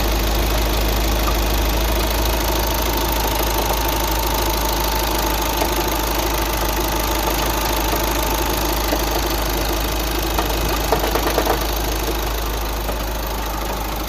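Engine of a 2009 VW Tiguan 5N running steadily with a knocking noise whose cause the owner does not know. A short cluster of sharper knocks comes about eleven seconds in.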